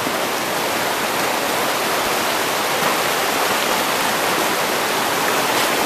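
Flooded, muddy river rushing over boulders: a steady, loud rush of fast white water through rapids.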